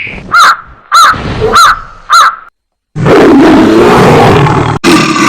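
Four short cawing calls, evenly spaced about 0.6 s apart, each rising and falling in pitch. After a half-second gap comes a loud, rough, sustained roar that breaks off briefly near the end.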